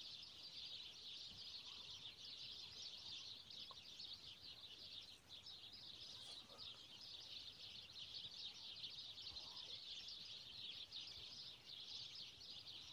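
Faint, steady, high-pitched chirping chorus of small animals that does not let up.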